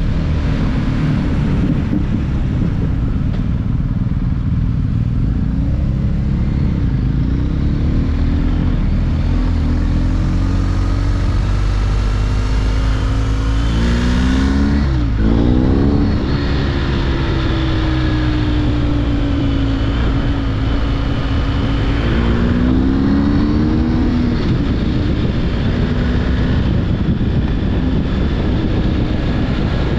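BMW R 1250 GS boxer-twin engine running under way, over a steady rush of wind and road noise. Its note climbs and then drops sharply about halfway through, and climbs again a little later, as the revs rise and fall.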